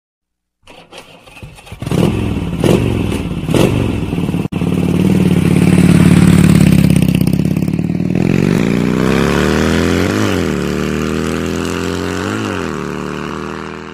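A motorcycle engine starting with a few clattering knocks, then running and revving up. Its pitch climbs steadily, with two quick throttle blips, and it fades out near the end.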